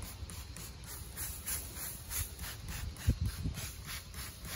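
Hand trigger spray bottle of apple cider vinegar and water squirting over the pork butts in quick repeated pumps, about four hissing squirts a second, with a low thump about three seconds in.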